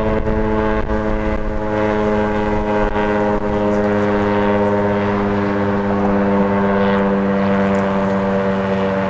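Federal Signal STH-10 electromechanical warning siren sounding on test, a loud tone holding one steady pitch. Wind buffets the microphone underneath it.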